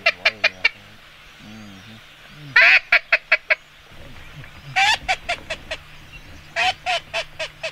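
Duck call blown in repeated series that imitate a hen duck: each series is a loud, longer note followed by four or five quicker, shorter notes that fade away. There are about three full series, roughly two seconds apart.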